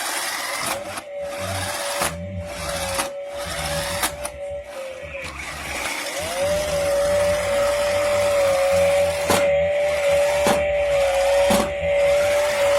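Battery-powered toy chainsaw running: a steady small-motor whine that stops about five seconds in and spins back up a second later, with several sharp clicks.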